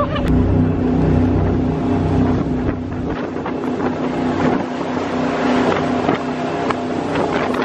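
V8 power boat's engine running steadily at speed, with wind buffeting the microphone. The deepest rumble eases about three seconds in.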